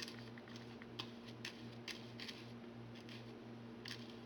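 Faint light clicks and taps of small objects being handled while fabric glue is brushed onto a paper speaker cone, a dozen or so scattered through, over a steady low hum.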